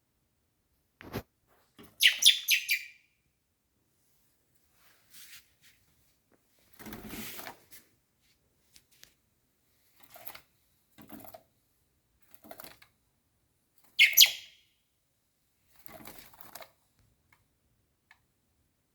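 Young blackbird chirping loudly in two bursts, about two seconds in and again about fourteen seconds in, with several quieter short rustling sounds in between.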